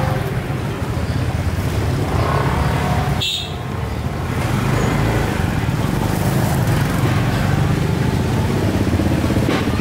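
Motorbike engine running steadily close by, a low pulsing rumble.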